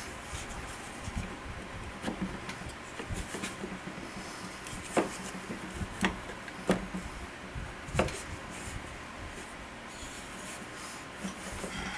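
Polymer rifle furniture being worked into place around an AK receiver: soft rubbing and scraping of plastic on metal, broken by a few sharp clicks and knocks, the loudest about five, six and eight seconds in.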